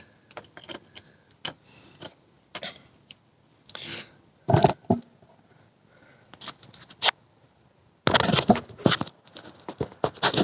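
Scattered clicks and metal scraping as a screw is worked out of a car tyre, with a louder scrape about halfway and a busy run of scraping and knocks near the end.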